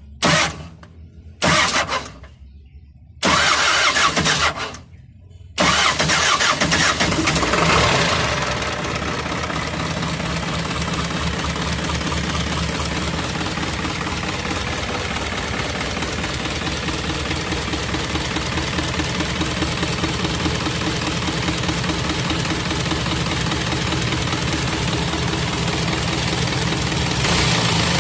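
Isuzu 4HF1 four-cylinder diesel engine being cranked in a few short bursts, catching about six seconds in, revving up briefly and then settling into a steady idle with a fast even diesel clatter. It is slow to fire on this first start after a fuel pump replacement, which the owner puts down to air still in the fuel line.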